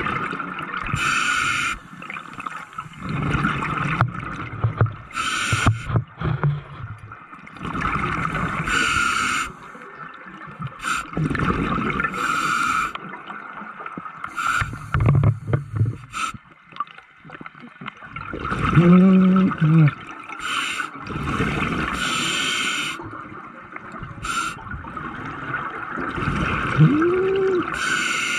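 Scuba breathing through a regulator underwater: a hiss on each inhale and a loud gush of exhaust bubbles on each exhale, repeating about every three to four seconds. Near the end there are a couple of brief low wavering tones.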